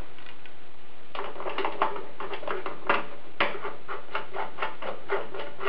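Fingers working the end of a silicone heater hose, greasing it with Vaseline: a quick run of soft clicks and rubbing, about four or five a second, beginning about a second in.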